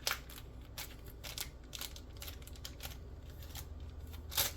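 Scattered light clicks and rustles of a toy's packaging and trading card being handled, with a sharper click just after the start and another near the end.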